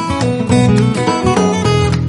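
Background music led by a strummed acoustic guitar, with chords changing every fraction of a second.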